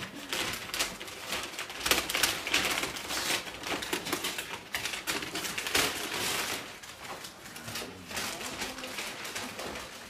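Gift packaging rustling and crinkling as a present is opened by hand, in irregular crackles that are busiest in the first two-thirds and die down near the end.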